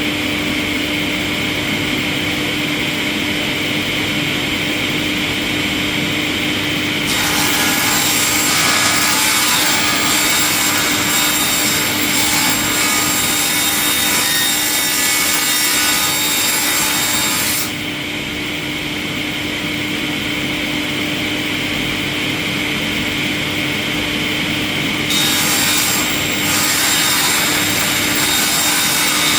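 Wood-processing machinery running with a steady hum, joined twice by a loud hissing grind of wood being cut: once from about seven seconds in to about eighteen seconds, and again from about twenty-five seconds in. Each grind starts and stops abruptly.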